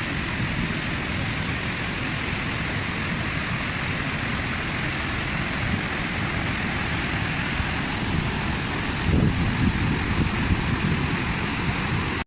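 Large waterfall's steady rush of falling water, with a few louder low bumps in the last few seconds.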